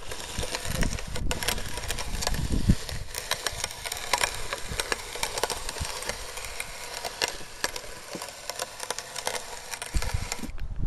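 Hand-cranked Enterprise No. 10 meat chopper grinding a mix of wet cement, weeds and mulch: dense gritty crunching and crackling as the auger crushes the material. It stops shortly before the end.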